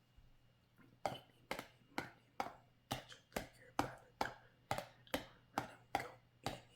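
Short, sharp taps at an even rhythm of about two a second, starting about a second in.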